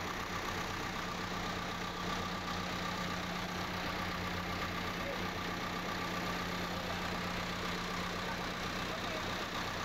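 Diesel engine of heavy machinery idling steadily, a low even hum.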